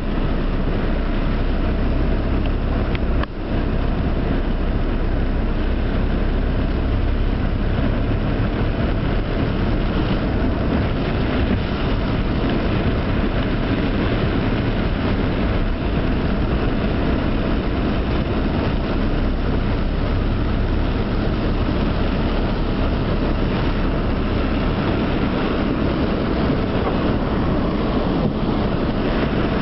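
Heavy rain pelting a car's roof and windshield, heard from inside the cabin as a steady dense rush, with the car's engine and tyres running through floodwater underneath it.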